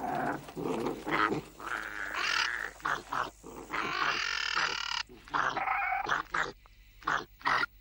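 Calls of a cynodont confronting a Coelophysis: a string of harsh animal cries, with a longer, harsher call about four seconds in and a few short sharp cries near the end.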